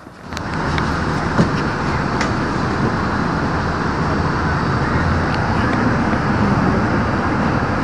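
Road traffic: a motor vehicle's engine rumble and road noise, steady, coming in suddenly just after the start.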